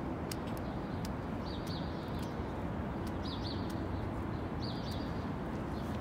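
Open-air street ambience: a steady low rumble with a small bird's short, high chirps in three quick clusters, about a second and a half apart.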